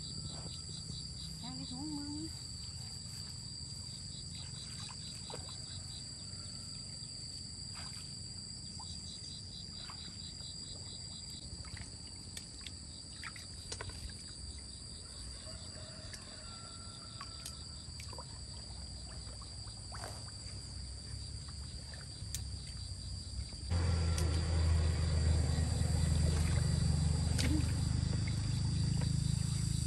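Insects droning steadily at a high pitch, with runs of rapid, evenly pulsed chirping in the first half and a few faint clicks. About three-quarters of the way through, a louder low rumbling noise comes in and stays.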